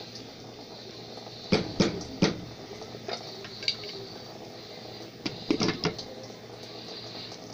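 A wooden spoon knocks three times against a pot of rice, then a glass pot lid clatters on over the pot in a quick cluster of knocks about five and a half seconds in, over a faint steady sizzle of rice cooking in oil.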